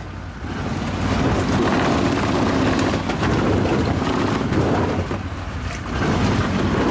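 Engine of an Argo Avenger 8x8 amphibious ATV running under load as the tracked machine crawls over creek-bed rock ledges. The engine eases briefly about five seconds in, then picks up again.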